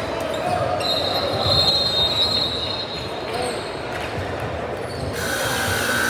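Basketball game in a gym: the ball bouncing on the hardwood against a steady haze of hall noise, with high squealing tones, the strongest running from about one to three seconds in, typical of sneakers squeaking on the court floor.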